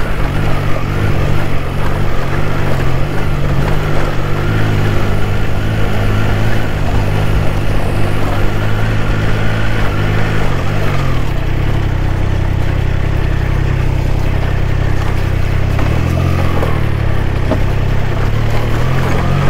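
Triumph Trident 660's inline three-cylinder engine pulling the motorcycle up a steep dirt track in Road riding mode, its note rising and falling with the throttle and dipping briefly about sixteen seconds in.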